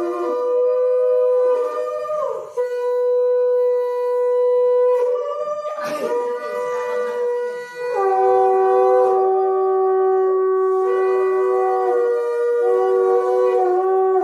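Several conch shells (shankha) blown together, giving long, steady, overlapping tones at different pitches. Each note is held for several seconds, with brief breaks for breath and slides in pitch where notes start and end.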